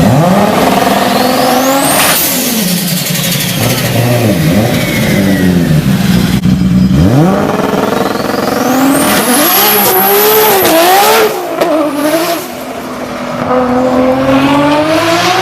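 Nissan Skyline R34 GT-R's turbocharged straight-six engine under hard acceleration, its revs climbing and dropping several times as it shifts up, with a high whistle sweeping up alongside the revs.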